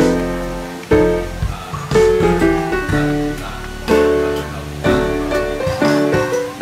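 Background music led by a plucked guitar, with chords struck about once a second that ring and fade.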